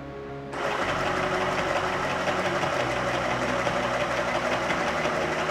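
Chillaxplus 618 electric sewing machine starting about half a second in and then running steadily at speed, its needle stitching a decorative pattern with a fast, even clatter.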